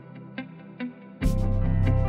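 Background music: evenly spaced plucked notes, then just over a second in a much louder, fuller section comes in with a strong bass.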